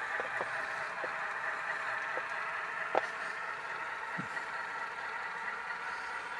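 Tsunami sound decoder in an HO-scale Alco RS10 model locomotive playing a steady diesel engine sound through its small onboard speaker as the model runs. A few sharp clicks from the wheels on the track come through, the strongest about three seconds in.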